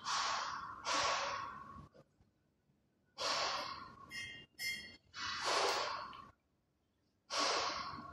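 A person breathing heavily close by, in hissy breaths of about a second each with short pauses between. Two brief squeaky tones come about halfway through.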